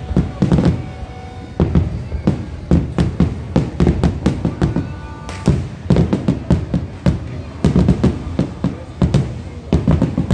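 Fireworks going off in a rapid, irregular barrage of sharp bangs and cracks.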